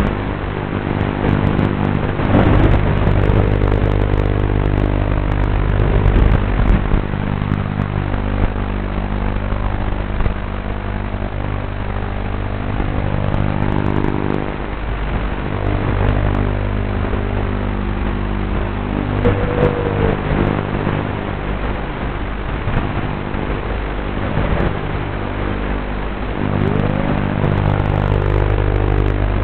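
QAV210 racing quadcopter's motors and propellers whining in flight. The pitch steps up and down every few seconds with the throttle, with a couple of short rising revs.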